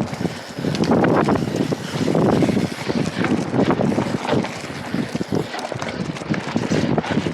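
Wind noise on a small action camera's microphone, mixed with the tyre noise and rattling knocks of a mountain bike ridden fast over rough ground. It swells louder briefly about one and two seconds in.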